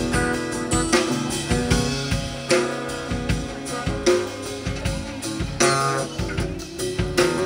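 Acoustic guitar and drum kit playing together, the drums keeping a steady beat of regular strikes under the ringing guitar chords.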